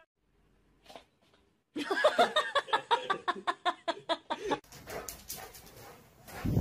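Near silence for about a second and a half, then a dog yapping in a quick run of short, high yips, about five a second, that breaks off about four and a half seconds in; fainter rustling and knocks follow.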